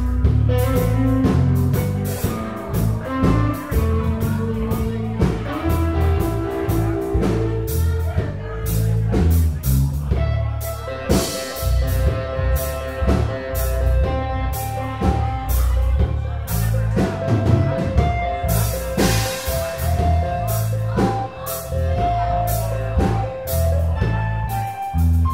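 Live band playing: electric guitar, electric bass and drum kit, with dense drum hits over a moving bass line and sustained guitar notes.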